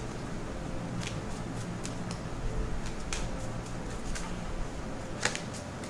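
A deck of tarot cards being shuffled by hand: soft, irregular flicks and taps of cards over a faint steady hum.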